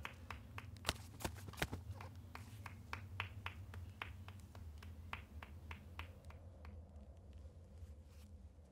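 A spectator's hand claps, about three a second, sharp and uneven in strength, fading away about six seconds in, over a steady low hum.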